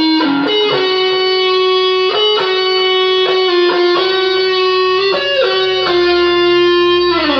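Electric guitar playing a lead line of long sustained notes with bends and slides, ending on a note that slides down near the end.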